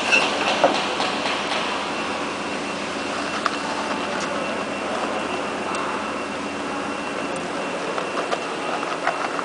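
Steady factory-floor noise of running machinery with a thin, steady high whine, broken by a few light metallic clicks from small bolts being handled at a lathe chuck.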